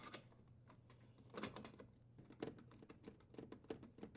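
Faint, irregular small clicks from a screw being driven in with a driver to secure the dishwasher's junction box cover, with a few clicks close together in the second half.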